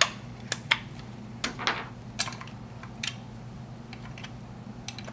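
Batteries being pressed into a 2GIG smoke and heat detector: a scattering of sharp plastic clicks and taps, about seven of them, over a faint low steady hum.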